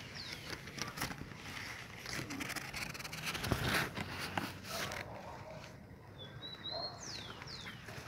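Close rustling and scraping of leaves and branches, loudest about halfway through. Near the end a bird gives a short whistled note followed by two quick falling notes.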